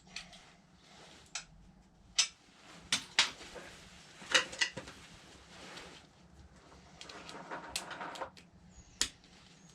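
Hand tools being handled and tried on the bike's torsion arm bolt: scattered sharp clicks and knocks, with a rustle of handling near the end, while a tool of the right size is sought.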